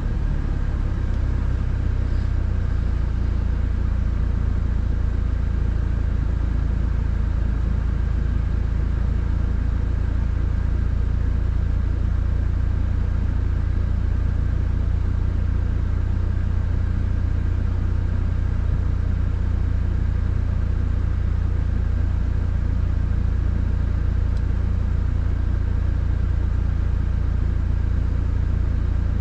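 Cabin noise of a Subaru WRX being driven: a steady low rumble from its flat-four engine and the road, heard from inside the car.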